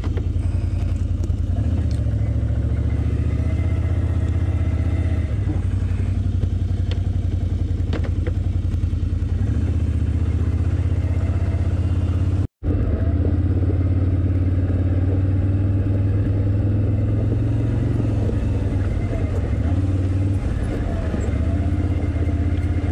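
Can-Am Outlander ATV engine running steadily under way on a dirt trail, its pitch swelling and easing a few times with the throttle. The sound cuts out for an instant about halfway through.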